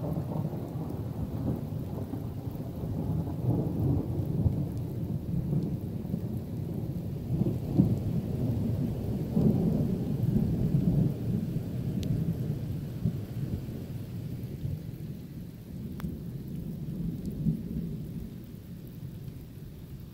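A long roll of thunder: a deep rumble that starts suddenly, swells and rolls several times, then slowly dies away.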